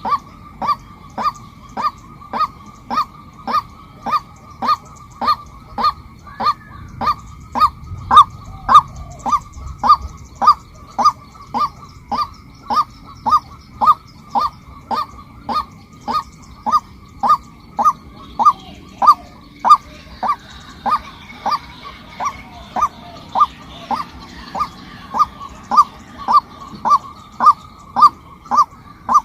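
Female white-breasted waterhen calling, one short note repeated in a steady rhythm of just under two calls a second.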